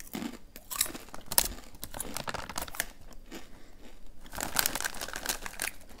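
Close-up crunching and chewing of Takis Nitro rolled tortilla chips, a string of sharp crunches, with the chip bag crinkling near the end.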